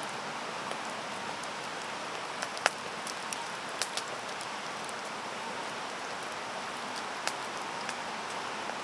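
Steady water hiss with scattered sharp ticks like drops landing on a surface; the loudest tick comes a little under a third of the way in.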